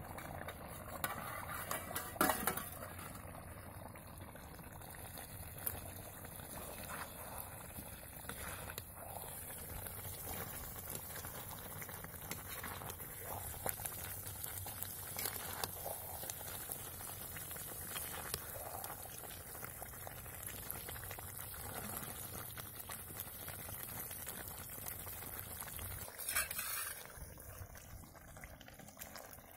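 Thick chicken curry bubbling in a metal kadai, with a metal spoon stirring and clanking against the pan now and then. A louder spell of scraping and ladling comes near the end.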